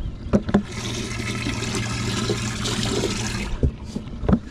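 Water rushing steadily into a boat's livewell over a low pump hum for about three seconds, then cutting off. A few knocks come just before it and another near the end.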